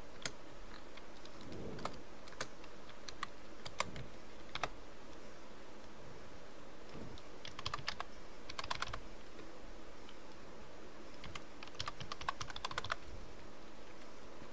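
Computer keyboard typing: a few single key presses spaced about a second apart, then short quick runs of keystrokes about halfway through and again near the end.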